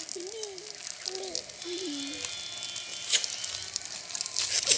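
Egg batter sizzling in hot oil in a cast-iron multi-cup snack pan, with a small metal fork clicking against the cups as the pieces are turned. There is a sharper click a little after three seconds in.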